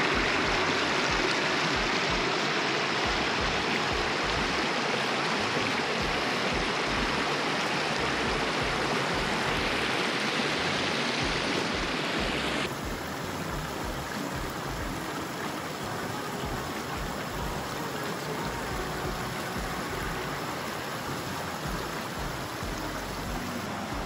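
Shallow creek water rushing over a low rock ledge and across stones, a steady rush. About halfway through it drops abruptly to a quieter, gentler flow.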